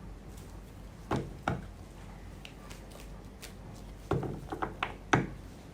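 Tarot cards being handled on a table: two soft taps about a second in, then a quick run of taps and rustles near the end.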